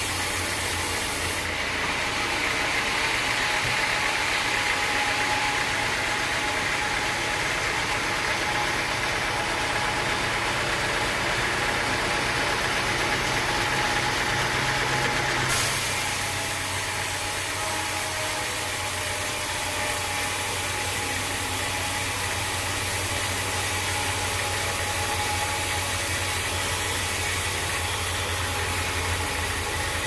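Band sawmill running, its blade cutting lengthwise through a teak log: a steady mechanical noise with a faint steady whine. The sound changes abruptly about halfway through.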